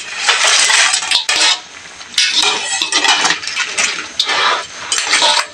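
Whole raw crabs tipped from a plate into a metal wok of boiling sauce, their hard shells and the plate clattering and scraping against the wok in several bursts.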